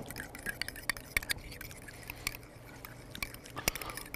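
Metal spoon stirring a thick sour cream sauce in a ceramic bowl, with light, irregular clinks of the spoon against the bowl.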